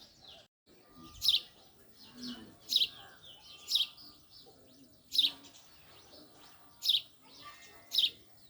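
Male house sparrow chirping: six short, loud single chirps, each about a second to a second and a half apart.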